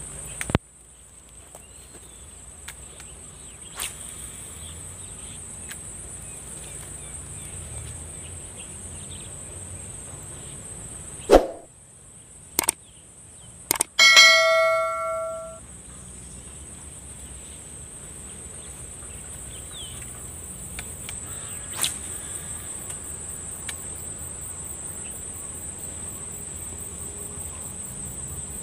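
Steady high-pitched insect chorus, broken about halfway by a few sharp clicks and a bell-like ding that fades over about a second and a half: the click-and-ding sound effect of a subscribe-button animation.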